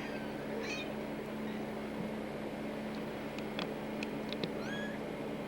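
Young kittens giving a few faint, thin, high squeaks, mostly near the end, with a few small ticks, over a steady low hum.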